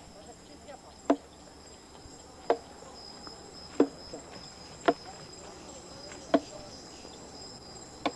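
Seven sharp chopping blows into a sago palm trunk, about one every second and a quarter, over steady high-pitched insect buzzing.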